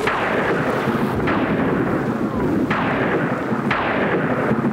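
Thunder in a thunder shower: four sharp cracks about a second apart, each rolling off, over a steady rush of rain.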